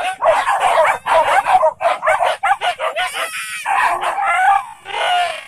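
A pack of leashed hunting dogs barking and yelping over one another in excited bursts, baying at a captured wild boar piglet.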